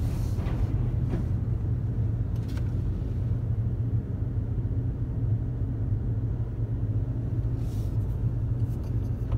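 Steady low engine rumble heard from inside a vehicle's cabin as it rolls slowly aboard a car ferry, with no clear changes in pitch.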